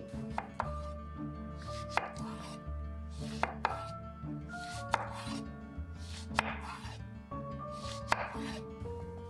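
Chef's knife slicing a zucchini into rounds and knocking on a wooden cutting board, a sharp knock about every second and a half. Soft background music runs underneath.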